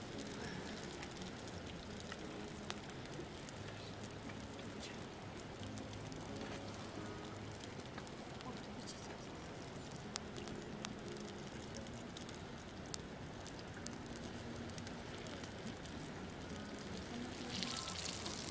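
Samosas frying in hot oil in a pan over a wood fire: a steady sizzling hiss scattered with sharp pops and crackles, growing a little louder near the end.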